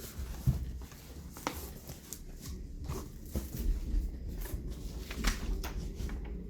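A package being unpacked by hand: irregular rustling and clicks of packaging being handled and items taken out of the box.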